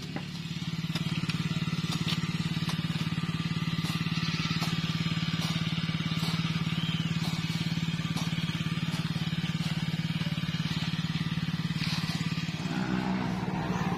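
Small engine running steadily at an even speed, driving an irrigation water pump.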